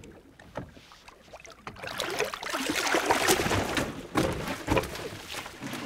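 A gaffed halibut thrashing and splashing at the surface beside the boat, the loud splashing starting about two seconds in. A couple of sharp knocks follow as the fish is hauled up over the gunwale.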